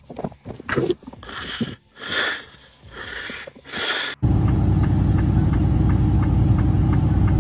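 Scattered rustling and crunching noises, then a sudden cut to a vehicle engine running with a steady low rumble, with faint regular ticks about twice a second.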